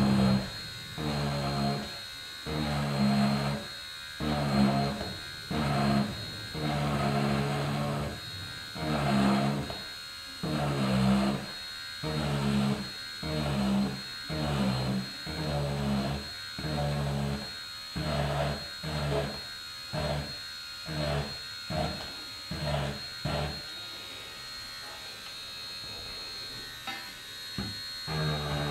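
Dremel Stylo rotary craft tool running on low speed, its bit cutting wood-grain grooves into a filler patch in short strokes. The tool's buzz grows louder with each stroke, about once a second, then settles to a steady hum for a few seconds in the second half before the strokes start again near the end.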